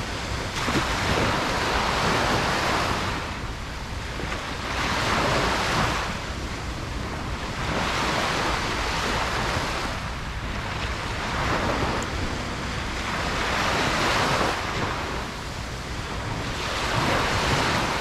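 Ocean waves breaking on a beach, each wash swelling and fading every few seconds.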